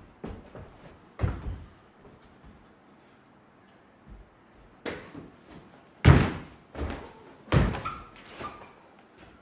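Thuds of a dancer's feet and body striking a wooden stage floor. A few lighter knocks come in the first couple of seconds, then a run of heavy thumps in the second half, the loudest about six seconds in.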